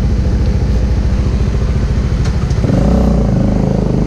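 Bajaj Dominar 400's single-cylinder engine idling with an even beat, then revving up about two and a half seconds in as the motorcycle pulls away, its pitch rising.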